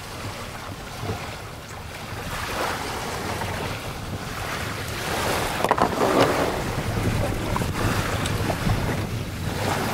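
Wind buffeting the microphone: a steady low rumble and rushing noise that grows louder about two seconds in.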